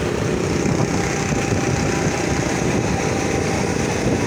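Steady rumble of a moving motorcycle heard from the passenger seat: engine and road noise mixed with heavy wind buffeting on the microphone.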